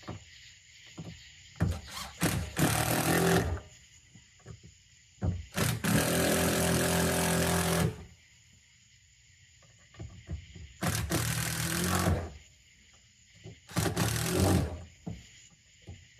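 Power drill driving in the screws that hold down a boat's fuel sending unit, in four runs of one to two and a half seconds with pauses between, the longest about halfway through.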